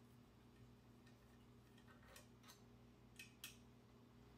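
Near silence with a few faint metallic clicks in the second half as the drill fixture and its bolts are handled and taken off the engine block, over a faint steady hum.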